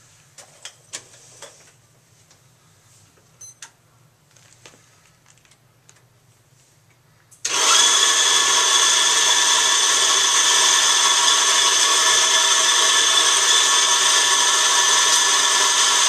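Electric espresso coffee grinder starting suddenly about seven seconds in and running steadily with a high whine, grinding a timed 10-second dose of beans for a double espresso shot. Before it starts, a few light clicks of handling.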